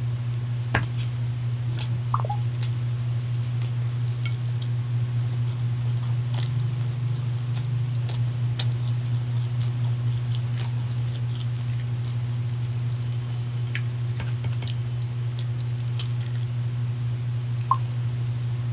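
Close-up eating sounds: chewing and soft mouth smacks over roast chicken and rice eaten by hand, with scattered small clicks. A steady low hum runs underneath and is the loudest thing throughout.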